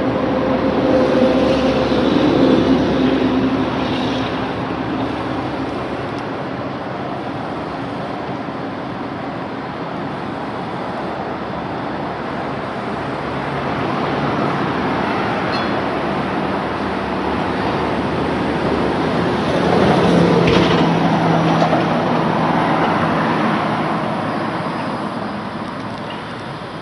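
Steady road traffic noise, swelling as vehicles pass about two seconds in and again around twenty seconds in.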